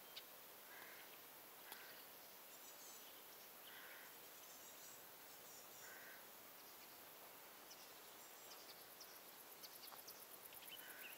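Faint riverside quiet with birds: one bird gives a short call several times, a few seconds apart, over thin high chirping from others.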